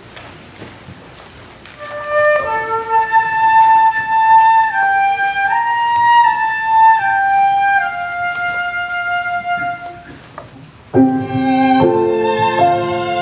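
Instrumental music: a slow solo melody of long held notes on a wind instrument. Near the end, piano and fuller chordal accompaniment come in.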